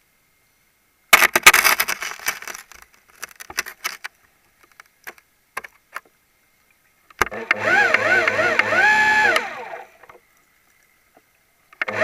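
Deep-diving equipment heard underwater: a burst of crackling bubble noise about a second in, with scattered clicks after it, then from about seven seconds in a few seconds of a loud pitched mechanical whine that wavers up and down about three times a second over a pulsing beat, starting again near the end.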